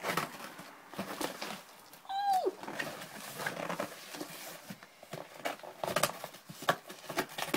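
Cardboard parcel being opened by hand: scattered rustles, scrapes and taps of the box flaps and packing. About two seconds in, a short high cry falls steeply in pitch.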